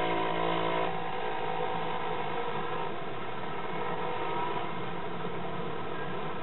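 A vehicle engine running steadily at a constant low pitch.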